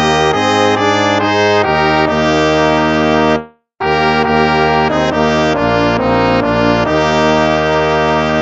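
Instrumental hymn music: held chords in two phrases, with a short break about three and a half seconds in.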